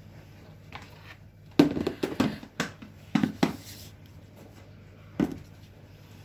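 Sharp knocks and clatters of kitchen utensils and containers being handled: a cluster of several about a second and a half in, two more around three seconds in, and a single one near five seconds, over a faint steady hum.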